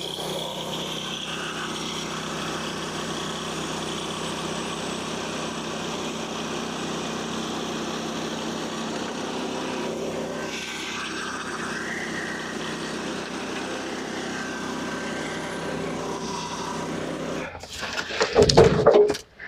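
An engine runs steadily at an even speed, then cuts off abruptly near the end. A few loud knocks or clatters follow.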